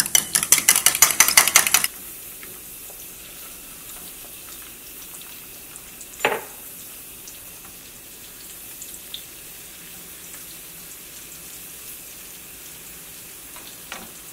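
Eggs beaten briskly with a metal utensil in a ceramic mug, rapid clicking strokes about eight a second that stop about two seconds in. Then the beaten egg frying quietly as an omelette in the pan, with one short sharp sound about six seconds in.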